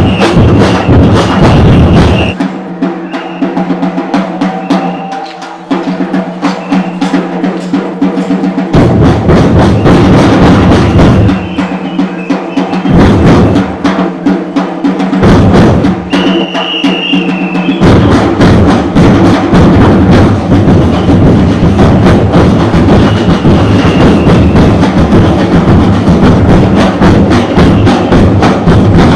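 Murga drum troupe of repique drums, bombo bass drums, snare drums and panderos playing a fast carnival rhythm. The low drums drop out from about two seconds in until about nine seconds, leaving the snares and lighter drums, and drop out twice more briefly later before the full ensemble comes back in.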